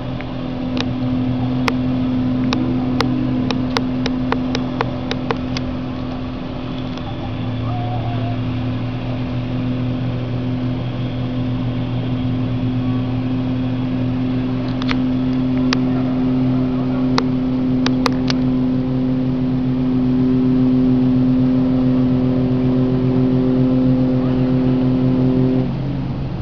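A motorboat engine running steadily with an even, pitched hum that cuts off abruptly near the end. Scattered sharp clicks sound over it.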